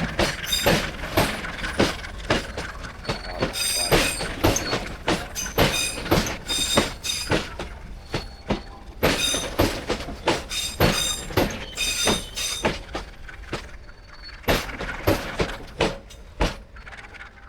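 Parcel train's wagons rolling past, wheels clacking over the rail joints in quick irregular runs with high metallic ringing. The clatter thins out and fades over the last few seconds as the train goes by.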